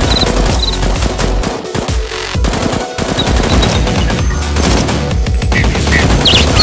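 Rapid machine-gun-style gunfire over background music with a steady beat.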